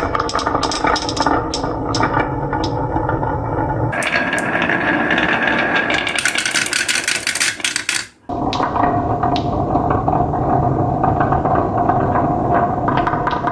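Many marbles rolling and clattering along a marble-run track, a continuous rumble studded with small clicks. The sound changes abruptly about 4 seconds in and drops out for a moment just after 8 seconds before the rolling resumes.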